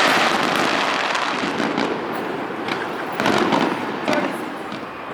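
Aerial fireworks going off: a dense crackling wash that fades over a few seconds, with scattered sharp cracks.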